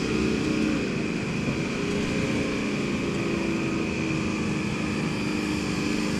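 A steady motor drone whose pitch wavers slightly, over a low rumble.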